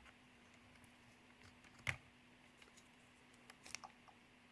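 Near silence with a few faint clicks from small RC-truck hub parts being handled, the clearest about two seconds in and another near the end.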